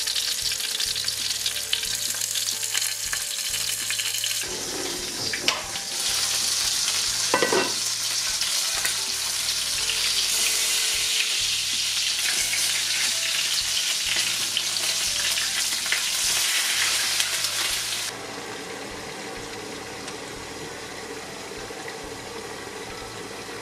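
Potstickers sizzling loudly and steadily as they fry in oil in a non-stick pan, with a couple of short knocks about five and seven seconds in. About eighteen seconds in the sizzle drops to a quieter, steady level under the pan's glass lid.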